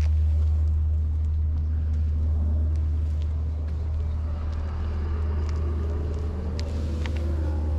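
A steady low rumble, with a few faint clicks and a wavering hum that comes in about halfway through.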